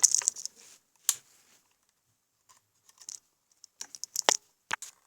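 Plastic clicks and scraping as test leads are fitted to the terminals of a dishwasher spray-arm diverter motor, in short separate bursts with the loudest cluster about four seconds in.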